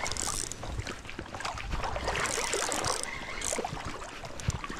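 River water running around a wading angler, with scattered sharp clicks and brief hisses from a spinning reel and line while a hooked steelhead fights.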